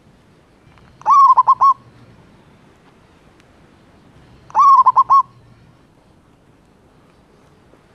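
Male zebra dove singing to a female: two short phrases about three and a half seconds apart. Each is a rising first note followed by a quick run of staccato coos.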